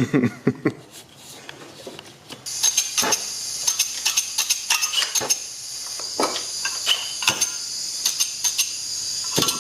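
Metal tools and parts clinking and knocking against each other. About two and a half seconds in, a steady high hiss starts and keeps going, with more clinks over it.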